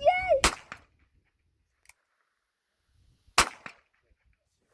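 Two pistol shots about three seconds apart, each a sharp single crack followed by a faint click.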